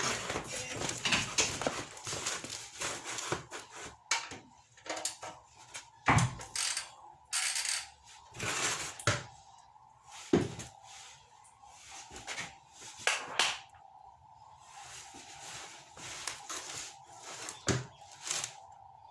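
Irregular metallic clanks, clicks and rattles of a 19 mm socket and ratchet working on a car's oil sump drain plug, in short bursts with gaps between.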